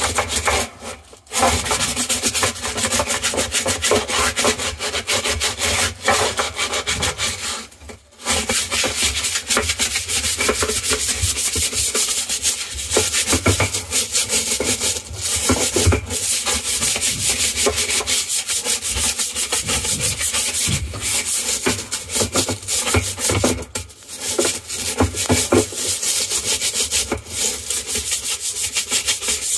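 Green scrubbing sponge scrubbed hard back and forth over the grimy floor of a Maytag Bravos MCT washer's wash basket and into the crevices around its centre hub, in quick repeated strokes. It pauses briefly about a second in, again around eight seconds, and near twenty-four seconds.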